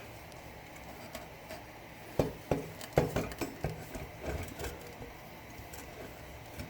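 Metal parts of an ATV exhaust clinking and knocking as they are worked by hand: a quick run of sharp taps and clanks starting about two seconds in and lasting a couple of seconds.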